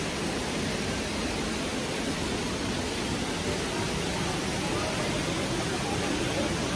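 Steady noise of a stream's rushing water, with faint voices of passers-by coming in near the end.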